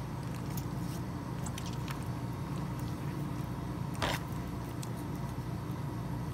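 Steady low mechanical hum of kitchen equipment, with faint scattered clicks and one sharper click about four seconds in as a knife scores a raw pork ham in a plastic tub.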